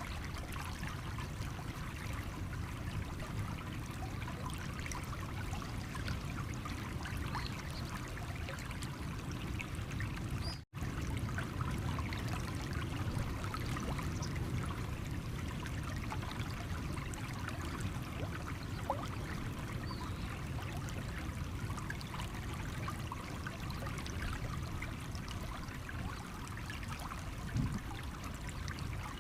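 Stream water running and trickling over stones, a steady even flow. About ten seconds in it cuts out completely for a split second, then carries on as before.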